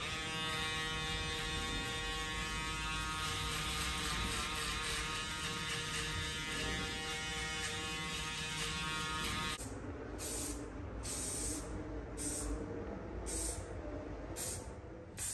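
Electric hair clipper running with a steady buzz, then shutting off about nine and a half seconds in. After that come fainter, choppy handling sounds.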